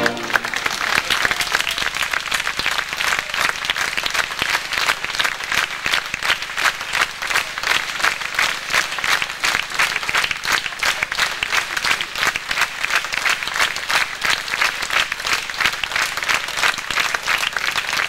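Theatre audience applauding steadily, a dense and even clapping from many hands, at the close of an opera performance.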